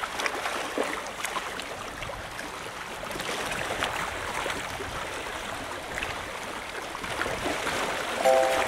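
Small sea waves lapping and splashing against a seawall: a steady wash of water with little splashes throughout. A short tone sounds near the end.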